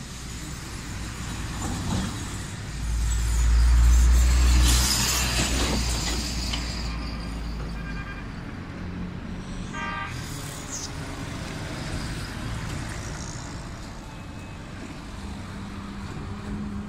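Road traffic going by: a vehicle passes loudly about three to five seconds in, and a short horn toot sounds about ten seconds in.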